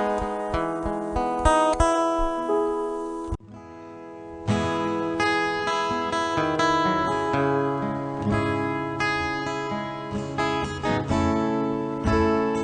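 Instrumental music led by strummed acoustic guitar. It cuts off suddenly about three seconds in, then starts again a second later with bass notes added underneath.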